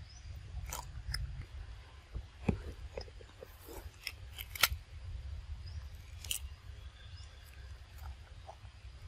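Macaque tearing and chewing crisp leafy greens: scattered sharp crunches and crackles, the loudest about halfway through, over a steady low rumble.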